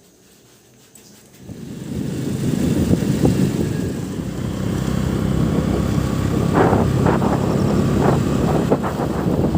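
A moving vehicle with wind rumbling and buffeting on the microphone. It starts abruptly about a second and a half in and stays loud and uneven.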